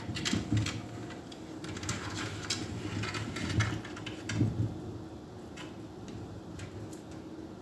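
Light ticks and rustles as a cat paws and tugs at the leaves of a houseplant, busiest in the first four and a half seconds, with a few soft low thumps.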